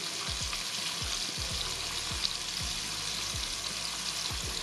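Flour-coated chicken fillet pieces deep-frying in hot oil: a steady sizzle with fine crackling.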